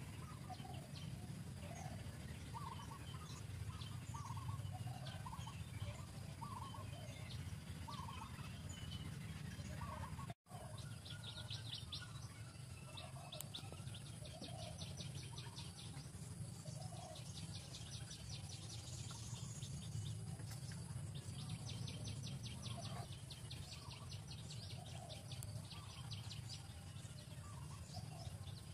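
Birds calling outdoors: many short repeated calls throughout, with rapid high-pitched trills from about eleven seconds in, over a steady low rumble of background noise. The sound drops out completely for an instant about ten seconds in.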